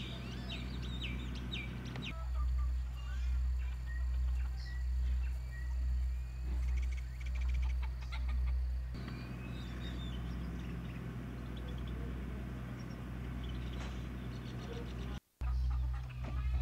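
Chickens and other birds calling over a steady low rumble. The rumble pulses about once a second through the middle, and the sound drops out briefly near the end.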